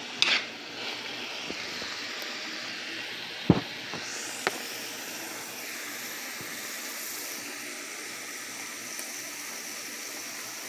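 Ground beef and onions sizzling steadily in a frying pan, with a few sharp clicks of a utensil against the pan.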